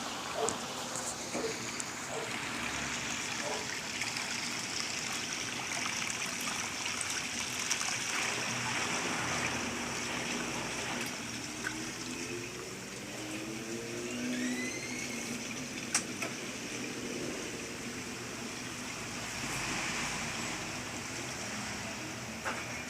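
Water running and splashing inside a Whirlpool 15 kg washing machine, a steady rushing sound, with a single sharp click about two-thirds of the way through.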